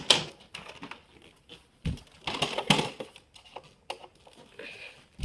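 Toy RC car on tape-wrapped tires skittering and bumping about: irregular plastic clicks, knocks and short scuffs, busiest about two to three seconds in.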